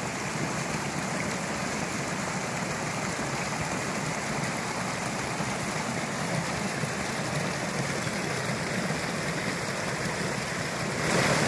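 A small hill stream in spate rushes and splashes steadily over rocks. The sound swells a little just before the end.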